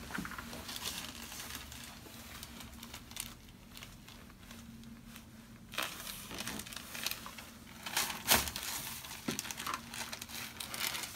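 Crinkling and rustling as a patient shifts on a paper-covered chiropractic table, with a few short, sharp snaps, the loudest about eight seconds in.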